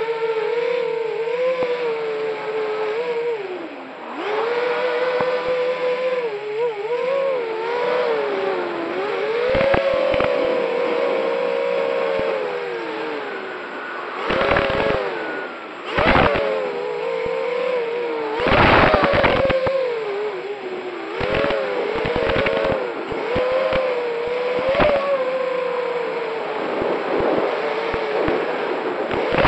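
Racing quadcopter's motors and propellers whining, the pitch rising and falling constantly with the throttle. A few short, louder rushes of noise come midway through.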